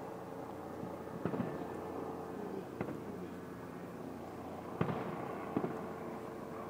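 Fireworks display bursting overhead: four separate bangs a second or two apart, over a steady background hum.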